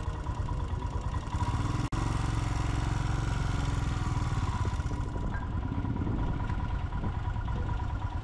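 Royal Enfield Himalayan's 411 cc single-cylinder engine running at low revs as the bike is ridden slowly, with a steady low pulsing beat. The sound cuts out for an instant about two seconds in.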